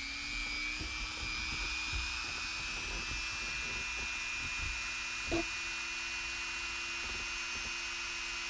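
High-speed rotary tool with a drill-mill cutting bit running at a steady speed, giving an even high-pitched whine over a lower hum, with a small tick about five seconds in.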